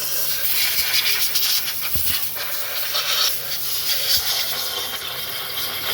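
Compressed air hissing steadily as it blows water out of the spark plug wells and ignition coils of a car engine, with a couple of dull knocks. The water in the coils is the cause of the engine's misfire and knocking.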